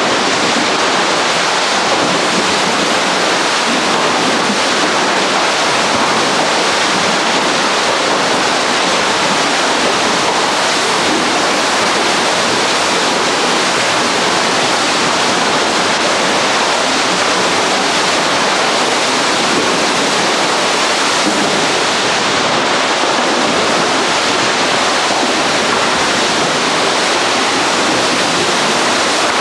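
Steady rush of churning water flowing through an indoor canoe training tank.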